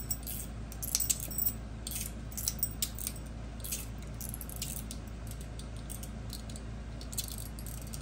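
Small metallic clicks and rattles from a stacked two-in-one metal fidget spinner being turned and wobbled between the fingers, its loose halves knocking. The clicks are frequent for the first few seconds, then sparser. The rattle is the sign of more play in the spinner than there should be, which the owner puts down to loose screws.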